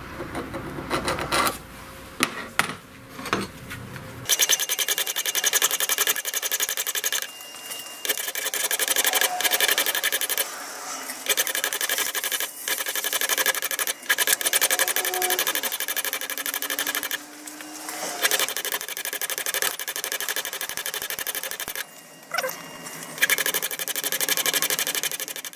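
Belt grinder grinding the bevel on a brass hammer head: a steady, high hiss of abrasive on brass with a fast, fine ticking, in passes broken by short pauses. Before that, a few clicks and scrapes of a steel caliper marking the brass.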